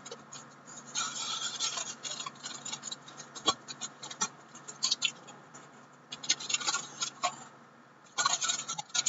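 Paper rustling and crinkling in several short bursts as a polka-dot paper gift bag is handled and its sealed top worked open, with one sharp tap about a third of the way through.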